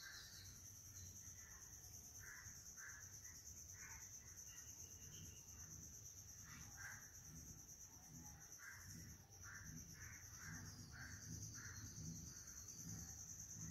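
Faint outdoor ambience: a steady high-pitched insect drone, with a run of short calls repeated about twice a second, most likely a bird.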